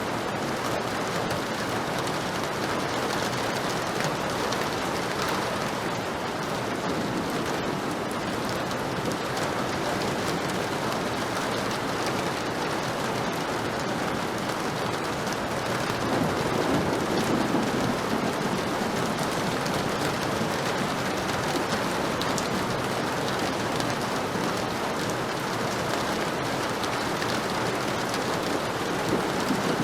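Heavy rain falling steadily, an even hiss of drops, with a slight low swell about halfway through.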